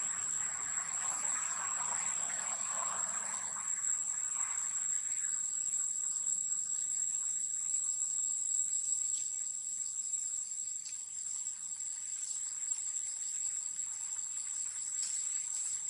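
Steady, unbroken high-pitched insect chorus, a continuous shrill trill. A soft noisy hiss lies underneath it for the first few seconds and then fades.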